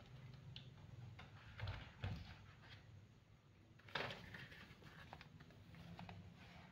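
Quiet room tone with a low hum and a few faint knocks, the sharpest about four seconds in.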